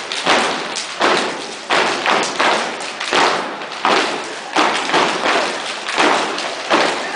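A booster squad's step routine: stomps in unison on a hardwood gym floor, a steady beat of about one hit every 0.7 seconds, each with a short echo.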